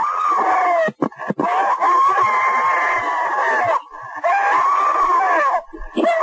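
Long drawn-out human screams, one after another with short breaks between them, the longest lasting nearly three seconds.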